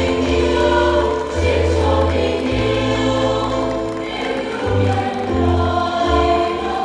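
Music: a choir singing long held chords over an instrumental bass line that moves to a new note every second or so.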